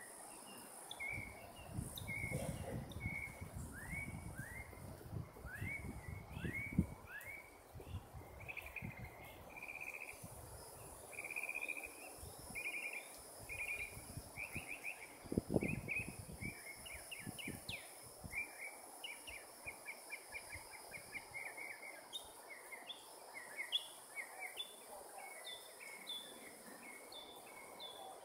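Birds chirping and calling over and over in short notes, trills and falling whistles, over a steady high insect drone. A few brief low thumps stand out, the loudest about a third and halfway through.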